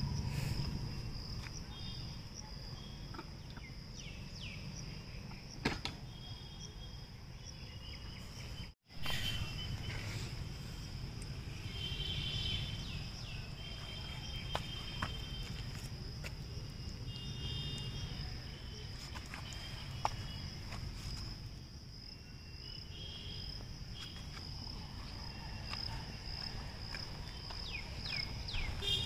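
Steady high-pitched insect buzzing over a low outdoor rumble, with short chirping calls now and then and a few faint knocks; the sound drops out for an instant about nine seconds in.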